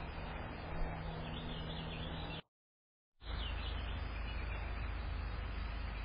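A small songbird twitters in short high chirps, once about a second in and again just after a brief total dropout of the audio midway, over steady background noise.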